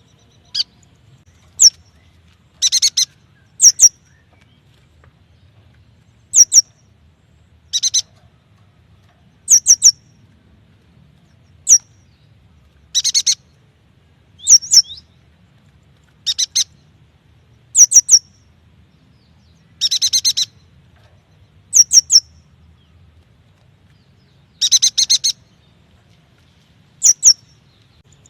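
Yuhina calling: short, high chirps in quick clusters of one to four notes, repeated every second or two.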